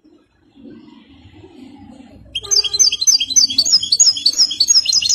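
A song-tutored European goldfinch starts singing about two seconds in: fast runs of high, repeated twittering notes that quicken into a rapid trill near the end.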